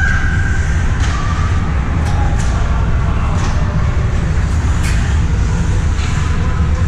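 Ice rink sound during a youth hockey game: a steady low rumble with scattered sharp clicks and knocks of sticks, puck and skates on the ice.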